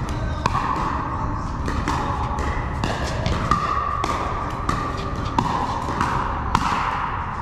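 Pickleball paddles striking a hard plastic ball in a fast volley rally: a dozen or so sharp pops at irregular intervals, some close together, heard in a large indoor hall over steady background noise.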